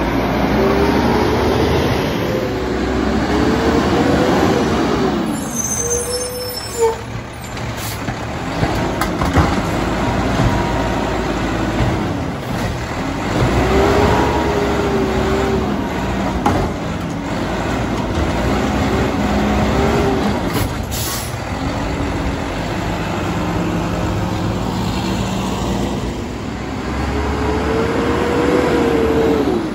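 Mack LEU garbage truck's diesel engine revved hard again and again, its pitch rising and falling in long swells as it drives the hydraulics of the McNeilus side-loader arm and packer. A few sharp knocks come in the middle.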